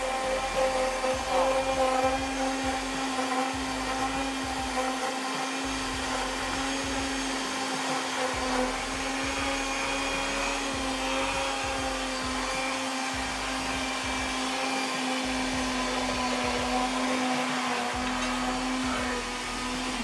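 Kitchen blender running steadily on its lowest speed with an even motor hum, blending a liquid cake batter while wheat flour is fed in gradually through the open lid.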